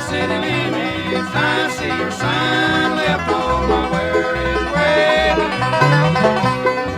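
Bluegrass band playing an instrumental passage, with banjo to the fore over guitar and bass notes that step along steadily.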